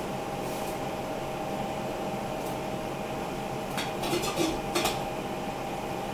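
Lid of a stainless-steel cooking pot being handled, with a few sharp metallic clinks about four seconds in, over a steady hum.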